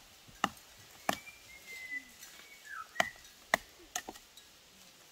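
A blade chopping with sharp, irregular knocks, about six strikes, two of them close together near the four-second mark.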